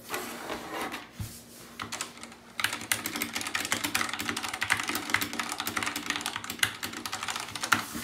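Fast typing on a Redragon K552 tenkeyless mechanical keyboard with non-clicky switches. A few scattered keystrokes come first, then a dense, continuous run of key strikes starts about two and a half seconds in and goes on until near the end.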